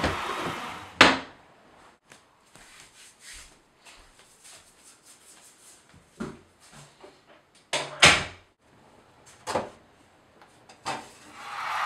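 A wooden dresser drawer pushed shut with a sharp bang about a second in, then soft barefoot steps on a hardwood floor. Next comes a run of knocks and clacks from a cabinet door being handled, the two loudest near eight seconds. A tap starts running near the end.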